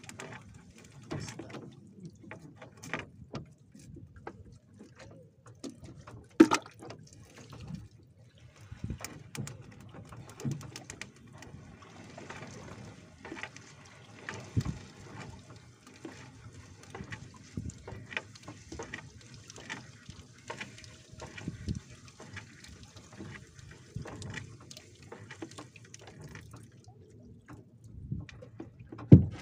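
Water splashing and dripping as a fishing net is hauled up from the sea beside a small boat, with scattered knocks on the boat. The loudest knocks come about six seconds in and just before the end.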